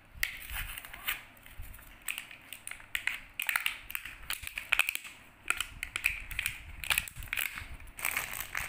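A stiff clear-plastic blister pack being peeled and torn open by hand, crackling and crinkling in quick, irregular snaps.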